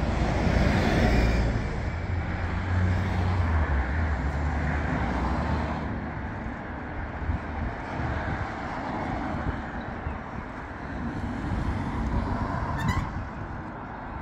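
Road traffic rumbling past, a steady outdoor noise with a heavier low rumble in the first few seconds that then eases.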